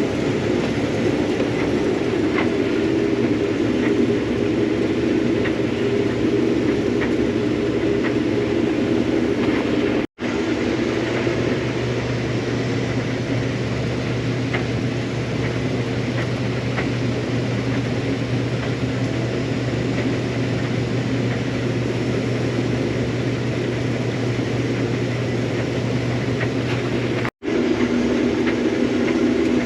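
Combine harvester running steadily while harvesting soybeans, a loud even engine and machinery drone. It breaks off for an instant twice, about ten seconds in and near the end, with the tone shifting slightly after each break.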